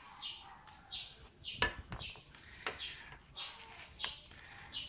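A small bird chirping over and over in the background, short high chirps about one to two a second, each dropping slightly in pitch. Cloth rustles as a knife blade is wrapped in a microfiber cloth, with a single sharp knock about a second and a half in.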